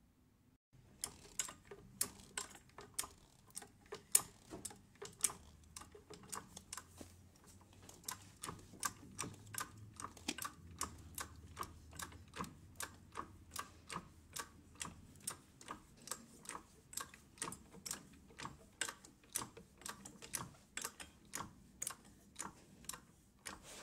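Trolley jack being pumped to lift a car: a regular series of sharp clicks, about two or three a second, from the pumping strokes, starting about a second in.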